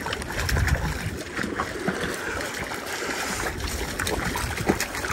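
Small waves lapping and trickling against a rocky lakeshore, with wind rumbling on the microphone. A hooked Lahontan cutthroat trout thrashes and splashes at the surface in short bursts.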